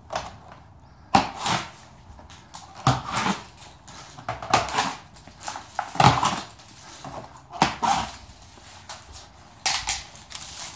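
Tin snips cutting through plastic packing straps: a string of about ten sharp clips and slaps, irregularly about a second apart, as each strap is cut and the loose straps and cardboard packaging are handled.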